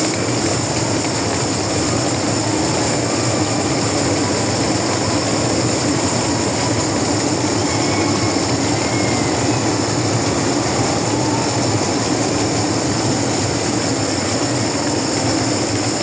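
A hall full of people playing handheld percussion instruments together with a drummer on a drum kit, a dense, steady wash of sound.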